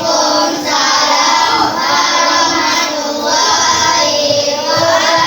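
A class of children singing together in unison, in long sustained phrases.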